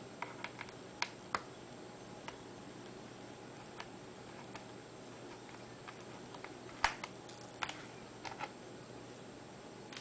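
Scattered light clicks and taps of a small screwdriver working the screws out of a netbook's plastic underside, irregular and unhurried, with the sharpest tap about seven seconds in.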